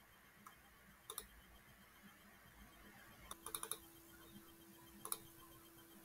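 Near silence with faint clicks at a computer: one about a second in, a quick run of several around three and a half seconds, and one more near five seconds. A faint steady hum starts with the run of clicks.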